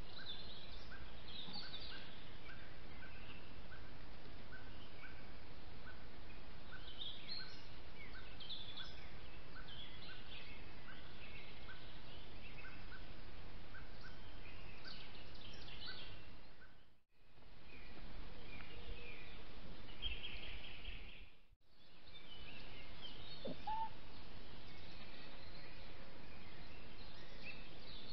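Woodland birds singing over a steady hiss: scattered chirps and trills, with one bird repeating a short high note about every two-thirds of a second for the first half. The sound drops out briefly twice, at about 17 and 21 seconds.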